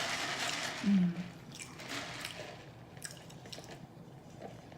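Close-miked wet chewing and lip-smacking mouth sounds, in scattered clicks. A short low hum of the voice comes about a second in.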